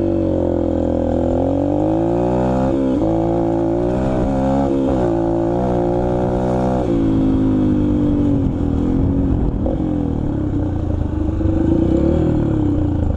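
Dirt bike engine running under way, heard from on the bike. Its pitch climbs and drops in steps several times in the first half, like gear changes, then holds steadier.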